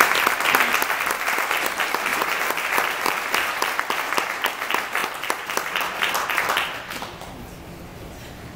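Audience applauding, many hands clapping at once, the clapping dying away about seven seconds in.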